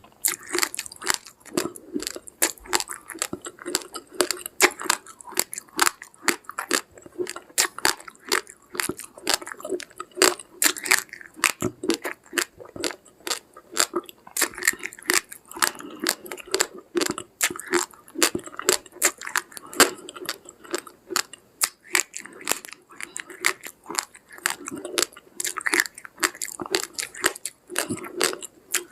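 A person chewing a mouthful of raw, uncooked rice grains, with rapid, crisp crunches that keep going throughout.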